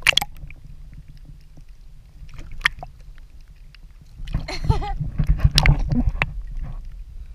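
Sea water sloshing and lapping against a camera held at the surface, with a low steady rumble. There is a sharp knock right at the start and another a little before the midpoint. The sloshing grows louder and busier for about two seconds in the second half.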